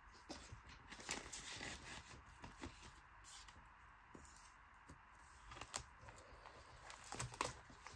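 Faint rustling and crinkling of clear plastic zip pockets in a ring binder as they are handled and turned, with a few soft clicks and taps scattered through.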